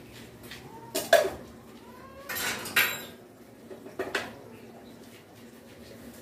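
Hammer and hand tool striking a thin metal pot as it is worked into a charcoal stove: sharp metal clanks, two close together about a second in, a longer clatter a little later, and two more knocks near the middle.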